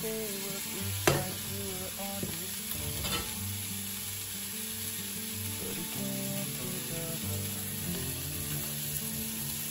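Zucchini slices sizzling as they fry in a nonstick frying pan while a wooden spatula stirs them. The spatula knocks sharply against the pan about a second in and again about three seconds in.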